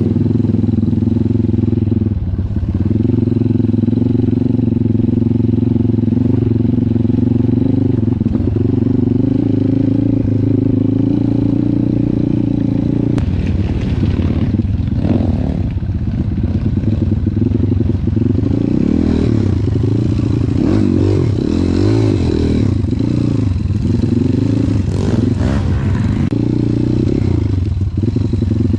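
Trail motorcycle engine running at a steady pitch, then from about halfway revving up and down again and again.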